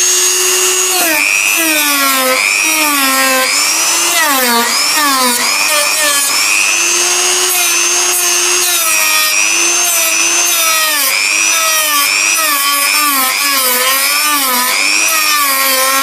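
Dremel rotary tool running fast with an abrasive bit, grinding paint and plastic away along a crack in a car bumper. Its high whine sags in pitch and recovers again and again as the bit is pressed into the plastic and eased off.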